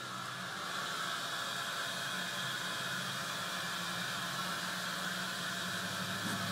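Steady background hiss with a low hum under it and no bangs or crackles.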